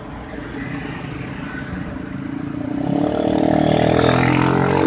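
A vehicle engine drawing closer, its steady hum growing louder from about three seconds in over a wash of traffic noise.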